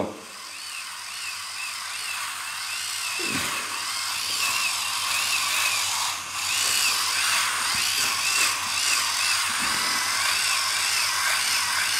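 Hangsun SR150 battery-powered electric callus remover running, its rotating abrasive roller grinding against the skin of a heel. It makes a steady high whir whose pitch wavers up and down repeatedly as the roller is pressed and moved over the skin.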